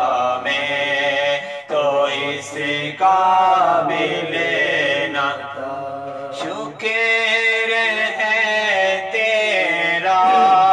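A man singing a naat, an Urdu devotional poem in praise of the Prophet, unaccompanied, in long phrases with held notes and short breaks between them.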